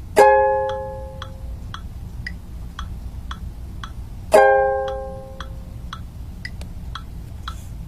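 Background music: a ukulele chord rings out and fades twice, about four seconds apart. A light ticking beat comes about twice a second between the chords.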